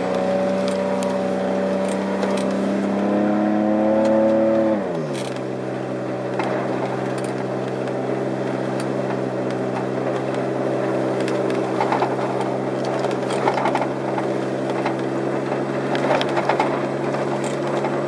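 Car engine and road noise heard from inside the cabin while driving. The engine note climbs slightly, drops sharply about five seconds in, then holds steady at a lower pitch, with light ticks and rattles over the steady drone.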